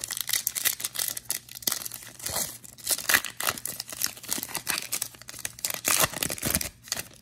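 Foil wrapper of a trading card pack crinkling and tearing as it is ripped open by hand: a rapid, irregular crackle that stops just before the end.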